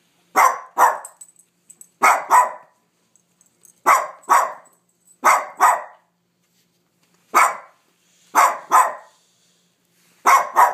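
Small dog barking repeatedly, mostly in quick pairs of barks, one pair about every one and a half to two seconds.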